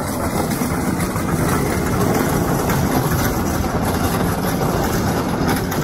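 Steady city street noise with an engine running, a constant rumble with no distinct events.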